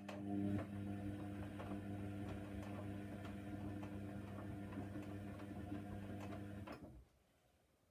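Hoover Nextra washing machine's drum motor turning the drum for about seven seconds, a steady hum with small hard items clicking against the drum, then stopping suddenly for a pause in the tumble.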